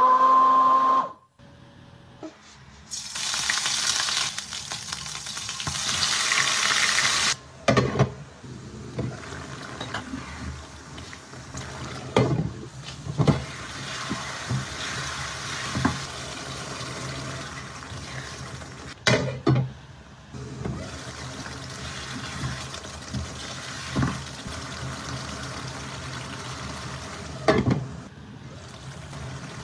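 A stick blender whirs in a plastic beaker and stops about a second in. A loud rush of sizzling follows for a few seconds, then chicken curry bubbles and sizzles steadily in a stainless steel wok on a gas burner, with several sharp knocks of utensils against the pan.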